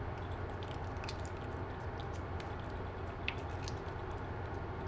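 Calico cat licking Churu paste from a squeeze tube: faint, irregular wet clicks of the tongue over a steady low hum.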